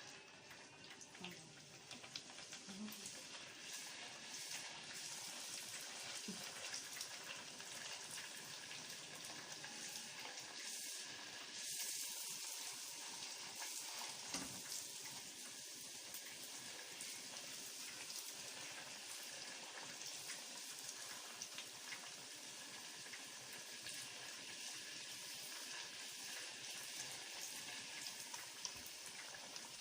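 Golgappa (puri) dough rounds deep-frying in hot oil: a steady sizzle with frequent small crackles, getting louder about two seconds in.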